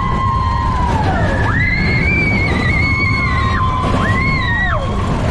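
Riders on a mine-train roller coaster screaming: several long, held cries that rise and fall in pitch, one after another, over the steady rumble of the train running on its track.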